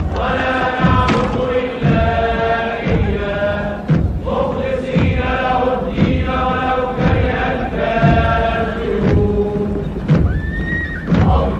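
Celebratory Arabic song: high voices singing over a steady drum beat, with women's ululation.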